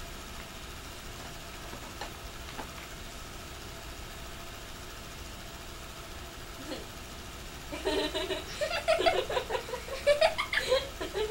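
Steady whir of a 16mm film projector running. About eight seconds in, people break into laughter over it.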